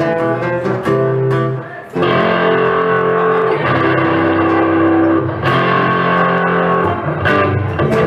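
Two amplified acoustic-electric guitars playing together: strummed chords, a short break just before two seconds in, then long held notes before the strumming comes back near the end.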